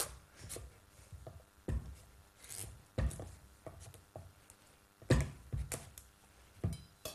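Large kitchen knife working through a tough, raw butternut squash on a wooden chopping board. It gives irregular sharp knocks, about six or seven in all, with fainter scraping between them.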